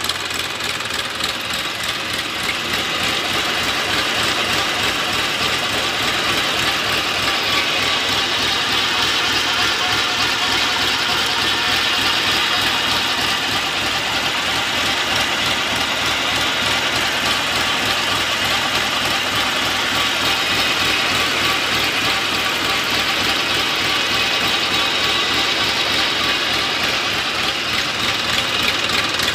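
Tractor PTO shaft driving a centrifugal irrigation water pump through its drive coupling: a steady, loud mechanical rattle and whine of the turning drive and pump over the tractor's diesel engine running slowly, at about 600–700 rpm. The rattle is loudest through the middle stretch.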